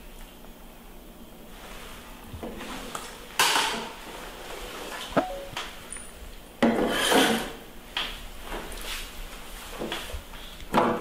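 Irregular knocks and scraping rubs on a wooden tabletop as a baby macaque moves about and a small plastic feeding bottle is knocked and set down, with three louder scrapes spread through and a couple of sharp clicks.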